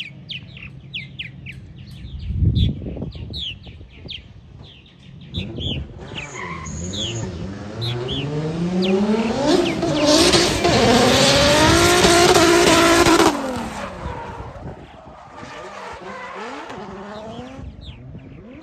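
A drift car approaching under power: its engine revs rise steadily, then the tires screech loudly for about four seconds as it slides, and the screech cuts off sharply while the engine fades. Birds chirp in the first few seconds, and there is a low thump early on.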